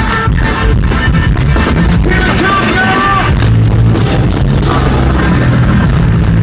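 Live rock band playing loud and continuously, with heavy bass and drums under guitar, recorded with poor, distorted sound. A few gliding high notes come about halfway through.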